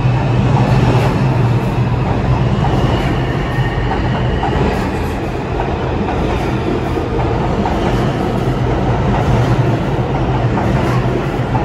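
New York City Subway train running on the rails, a steady low rumble with scattered wheel clicks and a faint high whine.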